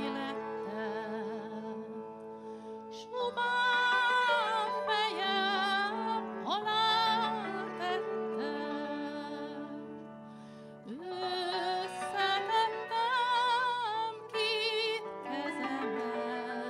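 Slow Hungarian folk music: a cimbalom with long held low notes under a slow melody with strong vibrato. The melody enters in phrases with upward scoops, about three seconds in, again near six seconds and again near eleven.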